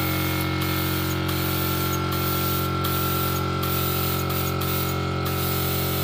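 Gravity-feed air spray gun hissing steadily as it sprays tinted stain onto a wooden table top, with a steady low hum underneath.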